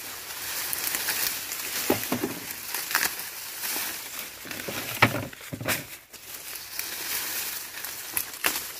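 Dry cornstalks and brittle leaves rustling and crackling as ears of corn are pulled and snapped off by hand, with one sharp crack about five seconds in.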